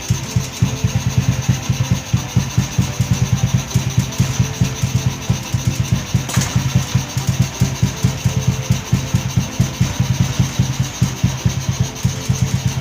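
Small single-cylinder motorcycle engine idling with a steady, rapid beat, with a sharp click about six seconds in.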